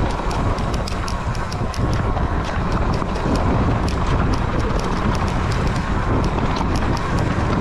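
Wind buffeting a GoPro action camera's microphone, with a rapid, irregular rattle of sharp clicks, several a second, as the camera is carried over rough trail.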